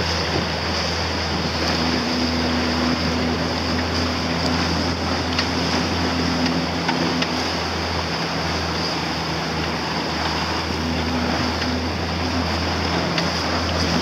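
Outboard motor of an inflatable boat running at a steady hum while under way, over continuous rushing and splashing of water along the hull and wind on the microphone.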